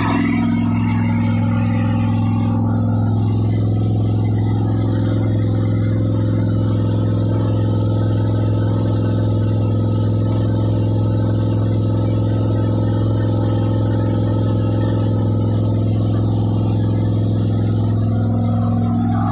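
Freshly rebuilt 1972 Pontiac 350 V8 engine running at a steady speed, holding an even, unchanging tone without revving.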